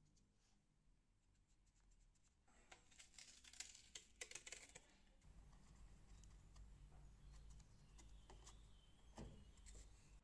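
Faint scratching and light taps of a marker pen drawing on bare metal, marking drill-hole positions, with a cluster of strokes a few seconds in and a few light ticks near the end.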